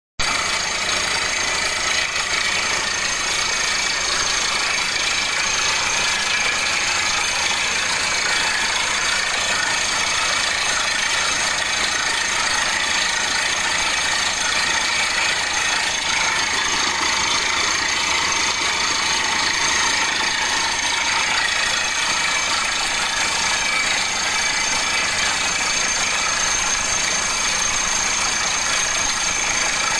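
Borewell drilling rig running steadily while drilling, as the cuttings are flushed out of the hole: a constant, loud mechanical noise with a strong hiss that does not change.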